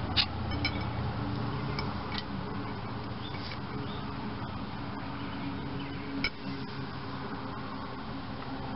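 A few small clicks of wire and paper clip tapping the rim of a glass jar as electrodes are lowered into the solution, over a steady low hum.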